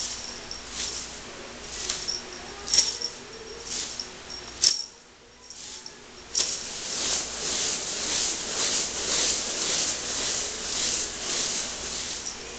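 Cat teaser toy rattling and jingling as it is shaken above the cat: separate shakes at first, a short pause about five seconds in, then quick, continuous rattling.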